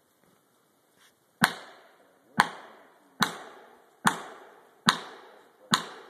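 Axe chopping into a tree, six heavy blows at a steady pace of a little more than one per second, each a sharp crack with a short dying tail.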